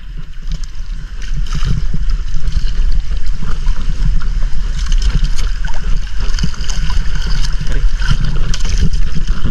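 Water splashing and sloshing against a small wooden outrigger canoe as it is paddled, with a steady low wind rumble on the microphone. It gets louder about two seconds in.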